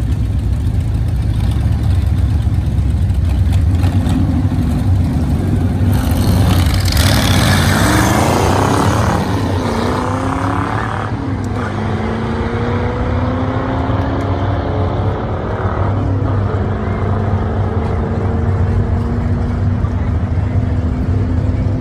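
A 1927 Ford roadster hot rod and a vintage coupe hot rod wait at the drag strip start line, then launch about six seconds in. Their engines rev hard and run away down the track, with the pitch climbing, dropping at gear changes about twelve and sixteen seconds in, and climbing again. A steady low hum runs underneath.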